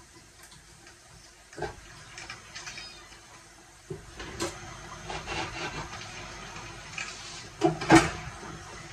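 Kitchen handling noise while boiled chicken is skinned by hand: scattered knocks and light clatter, with two sharp knocks near the end the loudest.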